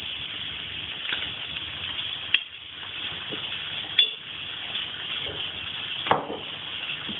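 Sauce sizzling steadily in a hot frying pan as it is poured over the frying meat and onions. Three sharp clinks of glass or crockery come about two and a half, four and six seconds in.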